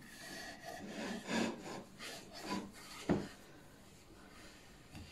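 Wooden panels of a children's play kitchen scraping and rubbing as a toddler climbs in it: several scrapes over the first three seconds and one sharp knock about three seconds in.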